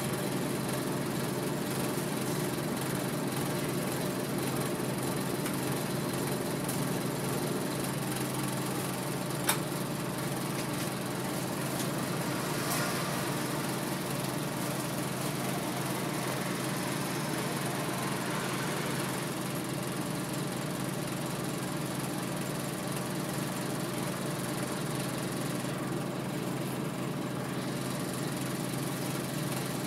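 Scania Omnidekka double-decker bus engine running steadily, heard from inside the passenger saloon, with one sharp click about nine and a half seconds in.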